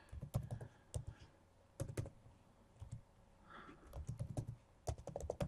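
Typing on a computer keyboard as a password is entered: scattered, irregular key clicks, some single and some in quick little runs.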